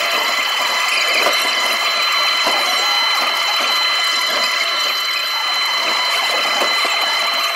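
Takeuchi TB290 mini excavator running under load, heard from the operator's seat as the bucket digs into and lifts soil: several steady high-pitched tones over a continuous mechanical rattle, with scattered knocks.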